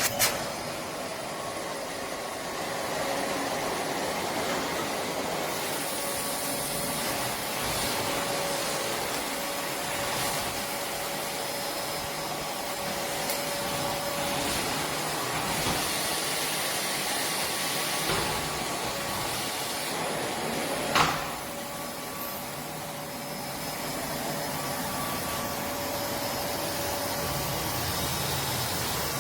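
Philips Series 3000 Performer Compact 900 W bagged vacuum cleaner running steadily, with a faint steady tone over the rush of air. A single sharp click comes about 21 seconds in.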